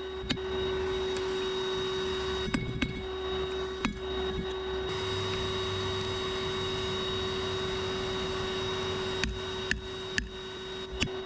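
Electric forge blower running with a steady hum, with a few light clicks and knocks.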